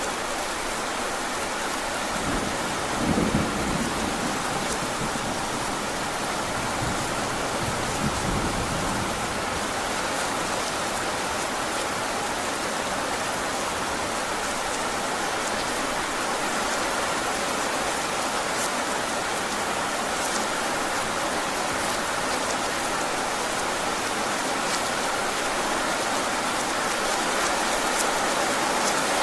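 Heavy rain falling steadily, with a low rumble of distant thunder about three seconds in and a second, weaker one a few seconds later.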